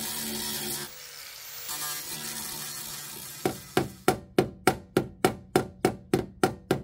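Angle grinder grinding the steel cab corner, cutting off about a second in. From about halfway, steady hammer taps, about three a second, on a screwdriver held against the sheet-metal repair panel, shaping its curved edge to match the original radius.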